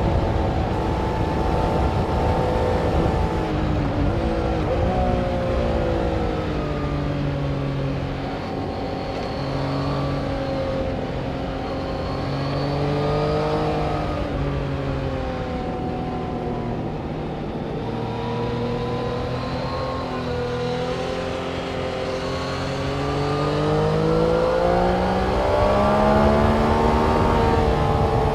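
Engines of vehicles lapping a race circuit through a corner: several overlapping engine notes that drop as they slow into the turn and climb again as they accelerate out, with a strong rise in pitch near the end.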